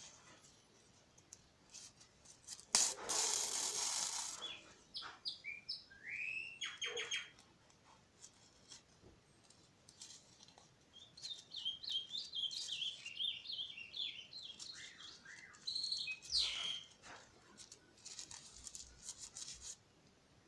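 A small bird chirping in short, rising notes, in scattered runs. A loud burst of noise lasting about a second and a half comes about three seconds in.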